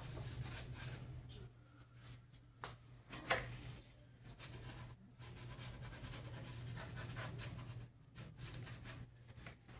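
Hands wiping and rubbing to get oil and grease off a part under a snowmobile chassis, a quiet scratchy rubbing that comes and goes, with two light knocks a few seconds in.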